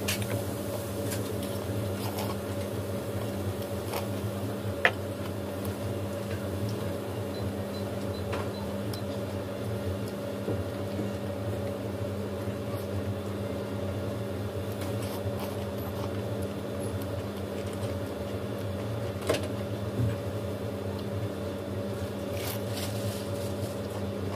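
A steady low machine hum made of several fixed tones, with scattered faint clicks and a sharper click about five seconds in and again near nineteen seconds.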